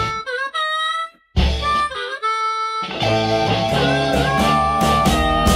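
Background music: twice in the first three seconds the band drops out, leaving a lead instrument playing bending notes on its own, then the full band comes back in.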